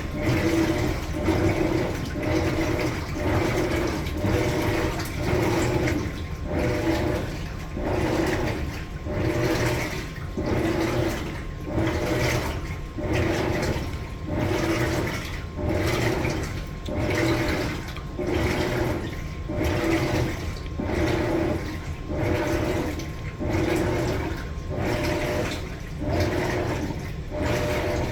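Maytag Bravos top-load washer churning water and laundry in its drum, the wash plate driving the load back and forth. Each stroke makes a regular, even swish a little faster than once a second, over a faint steady motor hum.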